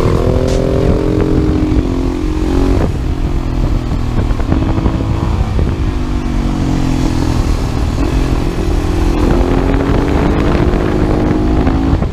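Supermoto motorcycle engine running under way, its pitch rising and dropping back several times as the rider accelerates and shifts, over a steady low rumble of wind and road noise.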